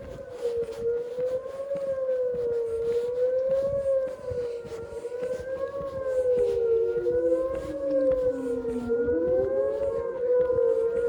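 Outdoor tornado warning sirens sounding during a test. A strong wavering tone swings up and down about every second and a quarter, while a second, lower siren tone slides slowly down and then sweeps back up about nine seconds in.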